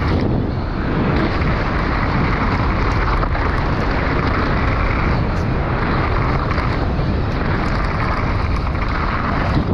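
FPV racing drone's propellers running hard in close pursuit, a steady loud whirring mixed with wind rushing over the microphone, its pitch swelling and easing as the throttle changes.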